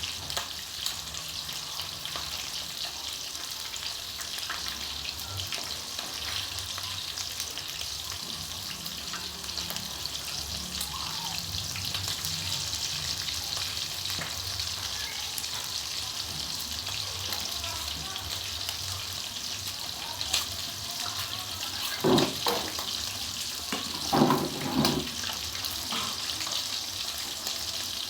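Breaded chicken pieces frying in hot oil, a steady crackling sizzle, with two brief louder sounds about three quarters of the way through.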